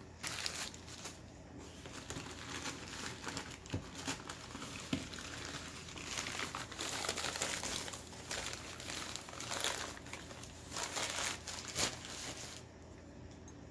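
Crinkling and rustling of packing wrap, handled and pulled apart in irregular bursts as a wrapped item is taken out of a box. It stops about a second before the end.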